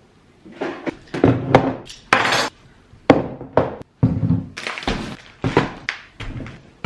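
Baking ingredients and kitchen things being set down on a countertop one after another: a loud, irregular series of about a dozen thunks and knocks.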